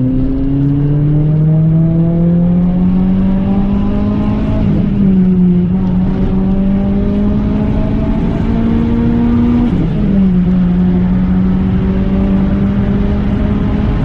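Renault Clio 3 RS 197's 2.0-litre four-cylinder engine pulling under acceleration, heard from inside the cabin. The revs climb steadily, break briefly about five seconds in, then drop near ten seconds in, as at an upshift, and climb again.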